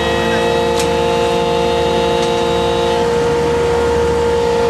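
Steady drone of a fishing boat's deck machinery running, with a strong steady hum and a higher whine that stops about three seconds in; a faint click or two.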